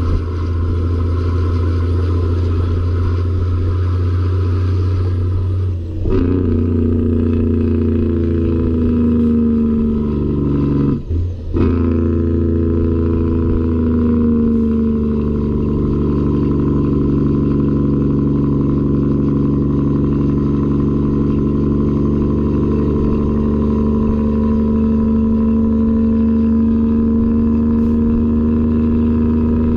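Peterbilt 379's Caterpillar 3406E inline-six diesel, tuned to about 1000 hp, pulling steadily down the highway. It dips briefly for a gear change about six seconds in and again about eleven seconds in, each time the engine note climbing back up as it pulls through the next gear.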